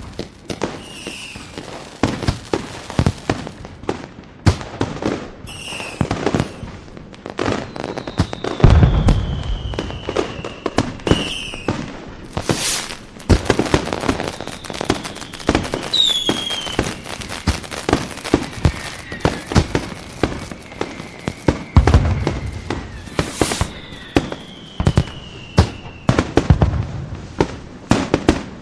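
Fireworks display: a dense run of sharp pops and crackles, with heavier booms about 9 and 22 seconds in. Several falling whistles from whistling shells cut through.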